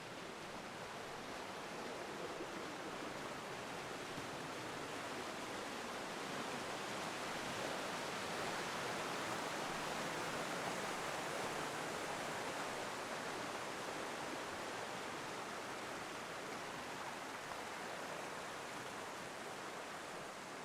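Mountain stream rushing over small waterfalls: a steady hiss of water that grows louder toward the middle and eases off again.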